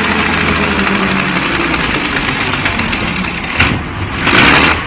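Steady low engine rumble under a broad rushing hiss, with two short surges of the hiss near the end.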